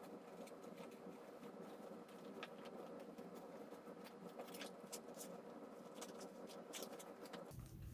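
Faint, scattered crackling and creaking of a duct-taped cardboard plate being bent at its edges by hand.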